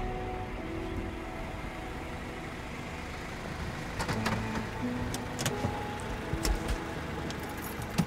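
Soft film score with long held notes. From about four seconds in, a small Honda hatchback pulls up and stops, with several sharp clicks and knocks.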